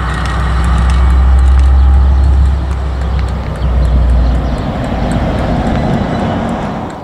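KiwiRail DL-class diesel locomotive (MTU V20 engine) running past close by with a loud, deep engine hum that fades after about four and a half seconds. The tank-container wagons behind it then roll by, their wheels clicking lightly and steadily.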